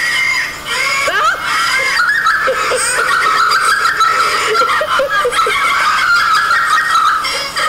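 Loud human laughter, going on almost without a break.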